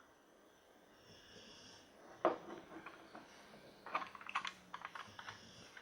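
Small plastic clicks and knocks from handling a toy RC car's hand-held remote control: one sharper click about two seconds in, then a quick run of lighter clicks a couple of seconds later.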